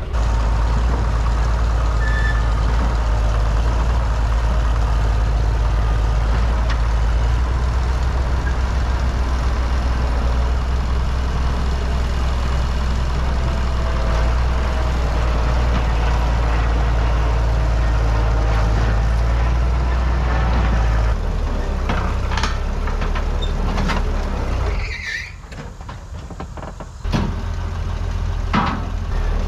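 Cat D6B crawler dozer's diesel engine running steadily under throttle, dropping away for a couple of seconds near the end before picking up again, with a few sharp knocks.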